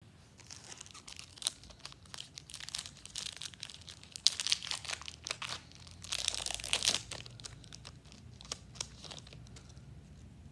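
A KitKat white chocolate bar's wrapper crinkling in the hands and being torn open, with a longer tearing stretch about six seconds in.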